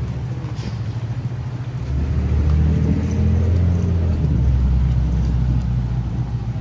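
City street traffic: a motor vehicle's low engine rumble, growing louder about two seconds in and easing near the end.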